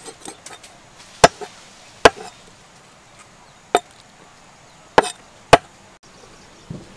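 Knife chopping octopus on a wooden chopping board: five sharp chops at uneven intervals, the last two about half a second apart.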